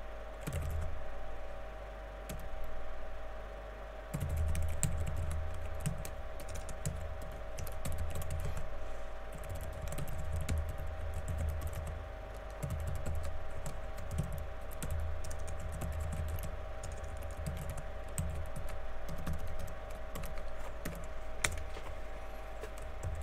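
Typing on a computer keyboard: uneven bursts of key clicks with soft thumps, over a steady background hum.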